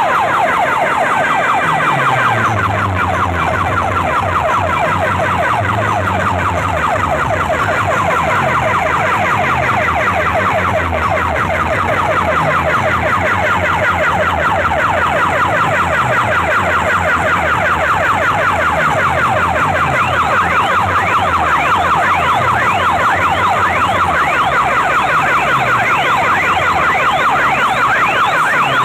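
Loud DJ track played over a large DJ sound system: a rapidly repeating rising siren-like sweep over a deep bass line that slides down in pitch again and again. Near the end the sweeps climb higher.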